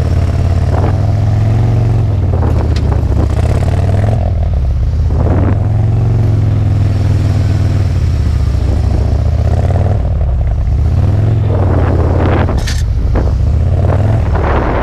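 Harley-Davidson touring motorcycle's V-twin engine running at low speed, heard close up from its rear luggage rack, its note rising and falling a little as the bike is ridden slowly through tight turns.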